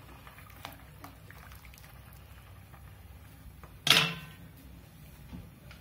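Rice in water stirred with a spatula in a stainless steel pot, with a few faint ticks, then about four seconds in a single sharp clank with a short ringing as the spatula is knocked against the steel pot.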